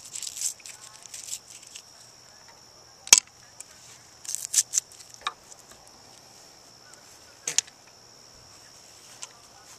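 Handling noise as Mentos are loaded into a PVC launch tube: a few scattered sharp clicks and knocks, the loudest about three seconds in, over a steady high hiss.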